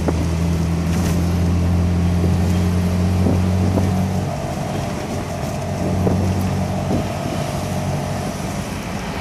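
Auto-rickshaw (tuk-tuk) engine running under way, heard from the passenger seat with wind rushing past. The engine note is steady and strong, then drops lower and quieter about four seconds in.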